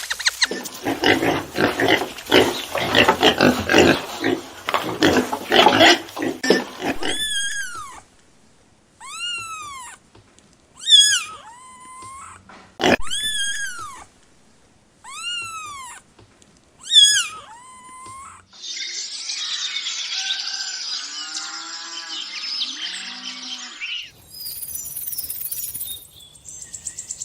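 Calls from several different animals in turn. First comes about seven seconds of rapid, rough pulsing calls. Then come about six separate calls that each rise and fall in pitch, and then a longer, noisier call.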